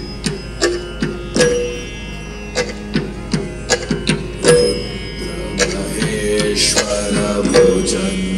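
Traditional drum music: sharp, ringing drum strokes at uneven intervals over a steady drone. It grows busier about six seconds in.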